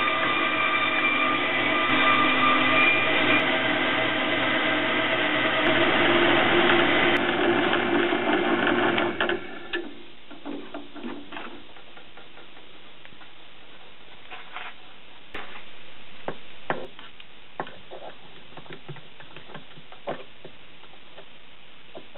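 Small vertical bandsaw running and cutting through a round workpiece held in a V-block: a steady, loud machine whine with several tones. It cuts off about nine seconds in, and only scattered light clicks and taps follow.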